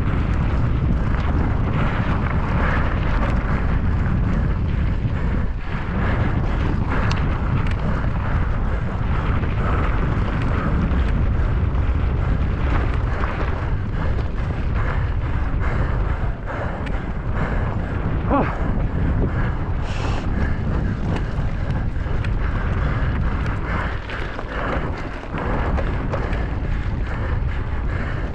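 Heavy wind buffeting on the microphone of a mountain bike descending fast, mixed with the steady rumble of the tyres and a constant clatter of knocks and rattles from the bike over rough ground.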